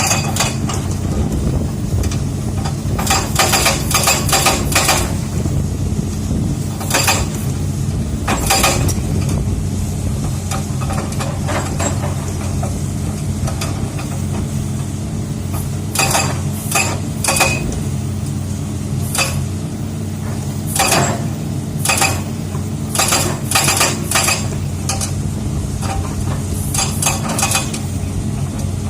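Excavator's diesel engine running steadily, with short bursts of rapid metallic hammering and clatter as the machine's rock breaker works on hard rock. The bursts come every few seconds, each lasting about a second.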